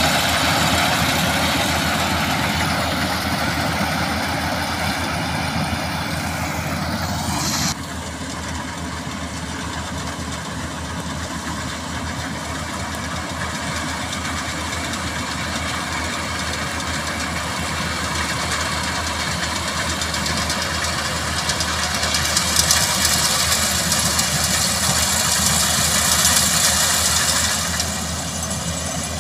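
Kubota AR90 rice combine harvester running steadily while cutting rice: a constant engine drone with a hiss above it. The sound changes abruptly about eight seconds in and again near the end, and the hiss grows stronger for several seconds before the end.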